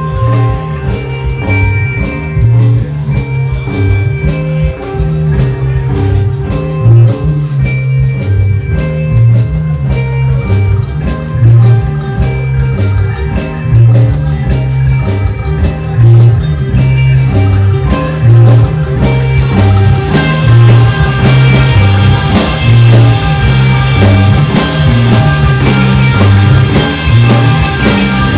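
Live stoner rock band playing: electric guitar, bass guitar and drum kit, with a repeating low riff under the drums. About two-thirds of the way through the cymbals come in harder and the sound fills out.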